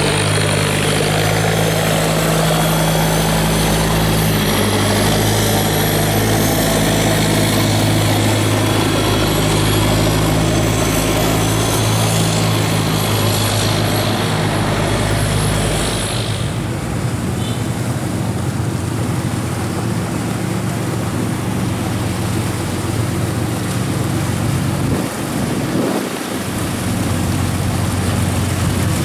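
Boat engines running steadily. First comes the open-mounted inboard engine of a wooden river boat, a loud even drone with a strong low hum. About halfway through, the sound changes to a different, deeper engine drone with the wash of churned water.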